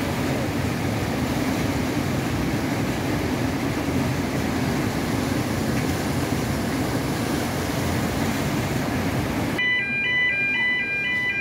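Water rushing and churning in the barrage lock chamber, with a steady low hum. About nine and a half seconds in it cuts to an electronic two-tone warning alarm that alternates pitch about twice a second, the warning signal at the lock's bascule road bridge.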